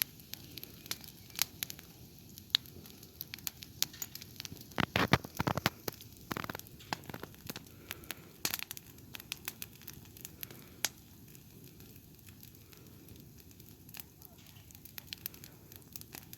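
Campfire burning down, its embers giving off scattered sharp crackles and pops, busiest in the first half and sparser near the end.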